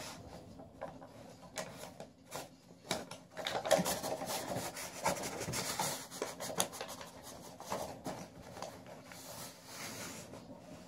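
A sheet of junk-mail paper waggled back and forth under a door, scraping and rustling against the carpet and door edge in irregular strokes, busiest a few seconds in.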